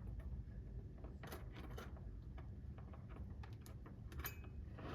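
Faint, scattered clicks and light metallic clinks of small steel clock-repair tools, such as broaches, being handled and set down, over a low steady hum.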